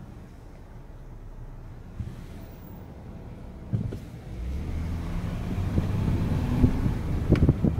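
Car heard from inside the cabin, quiet at a standstill, then pulling away about four seconds in, with engine and road noise rising. A few sharp knocks sound just before it moves off and again near the end.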